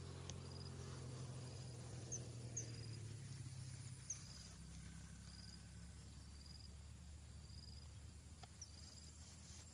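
Insects chirping, short high chirps repeating about once a second, with a few brief rising chirps among them. A faint low hum underneath fades out about a third of the way in.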